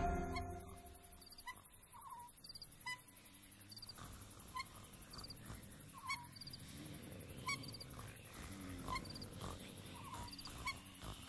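Faint night ambience: short chirping calls and small high trills repeating every second or so, like night insects and a small bird calling. Music dies away in the first moment.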